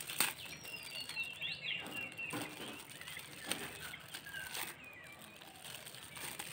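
Shiny gift-wrapping paper crinkling and tearing in scattered rustles as a small present is unwrapped by hand, with birds chirping in the background.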